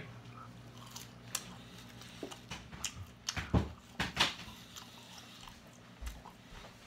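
A person chewing French fries close to the microphone: soft, scattered mouth clicks and chewing sounds.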